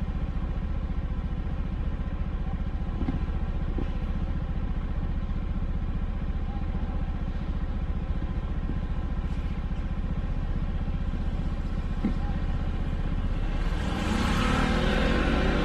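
Vehicle engine running steadily at low speed, a low even hum with a few light clicks; near the end it grows louder as the vehicle speeds up.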